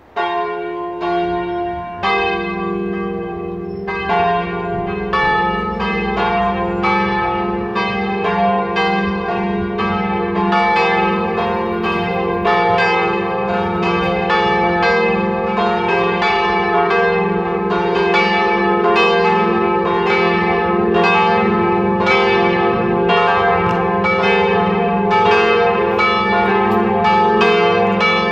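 A set of three swinging church bells, the largest tuned to F3, rung together in a full peal. The strokes start abruptly, the bells join one after another over the first few seconds, and then all three ring on in a steady, overlapping stream of strikes.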